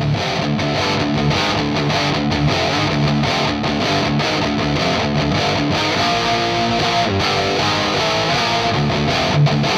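Intro music: a rock track with strummed, distorted electric guitar and a steady beat.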